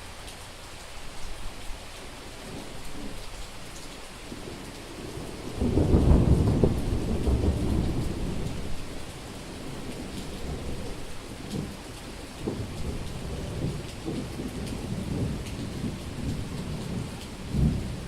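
Summer thunderstorm: steady heavy rain falling on a street, with a loud rumble of thunder starting about six seconds in. The thunder rolls on unevenly for several seconds and swells once more briefly near the end.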